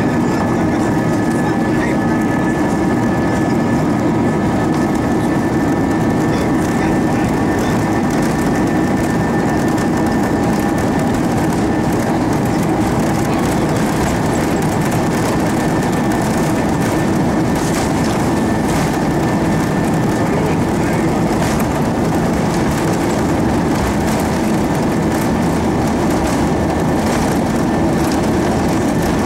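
Steady cabin noise inside an Airbus A320-232 airliner: the drone of its IAE V2500 jet engines and airflow with a constant rumble and rattle of the cabin. Faint high steady tones fade out about halfway through.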